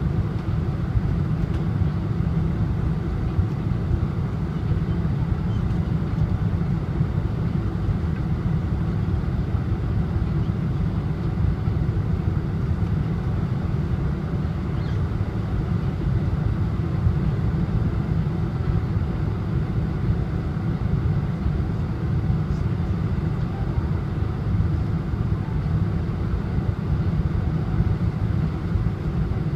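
Steady engine and airflow noise inside the cabin of a Boeing 747-400 descending on approach to land: mostly deep noise with a few faint steady engine tones above it, unchanging throughout.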